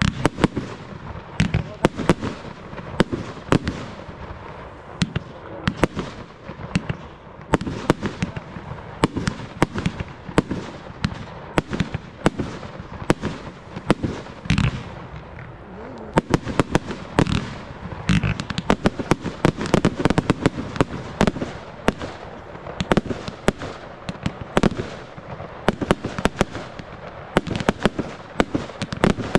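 Aerial fireworks: shells launching and bursting in quick succession, several sharp bangs a second.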